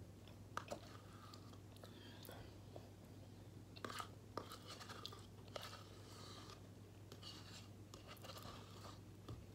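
Faint sounds of eating yogurt: a spoon clicking a few times against the cup, with mouth sounds, over a steady low hum.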